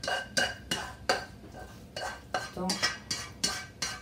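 A metal utensil scraping and knocking against the inside of a wok, about three strikes a second, each with a short metallic ring, as cooked spinach is scraped out of it.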